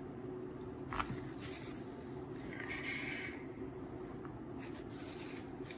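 A draw on a JuggerKnot Mini single-coil RTA fired at 65 W: a faint airy hiss of air pulled through the wide-open airflow, swelling near the middle, with a small click about a second in.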